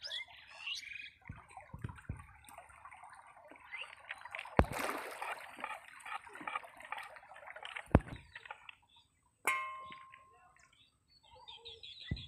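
Fishing line and a wooden reel being handled: rustling and clatter with about three sharp knocks, and a brief ringing clang a little past the middle.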